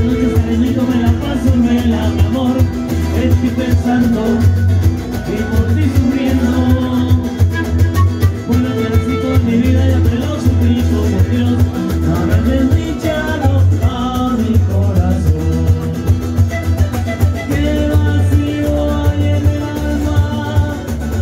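Latin American music with singing over a steady, pulsing bass beat.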